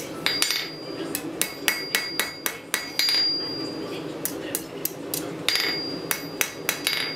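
Hand hammer striking a red-hot S-hook on a steel anvil face, quick light blows at about four a second in short runs, several of them leaving a clear metallic ring. The hook's curl is being shaped hot.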